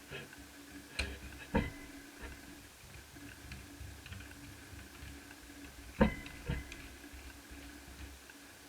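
Sharp clicks and knocks of a screwdriver and small parts handled against a laptop's plastic case while it is unscrewed: two pairs of knocks, one about a second in and one about six seconds in, the loudest with a brief metallic ring.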